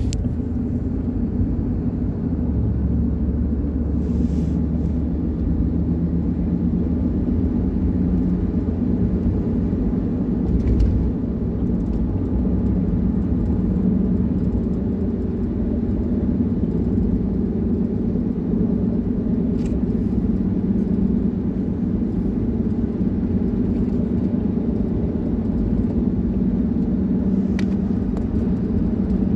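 Steady low rumble of a moving car heard from inside the cabin: road and engine noise while driving.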